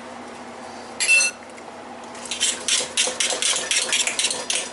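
A metal spoon clinks once, with a short ring, against a stainless steel pot about a second in, then scrapes and stirs through cauliflower mash in the pot in quick repeated strokes from about two seconds in.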